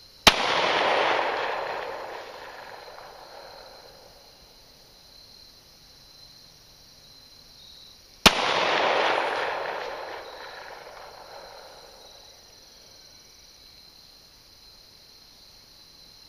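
Two 9mm pistol shots from a Glock 19 Gen 4, about eight seconds apart, each a sharp crack followed by a long echo that fades over about three seconds.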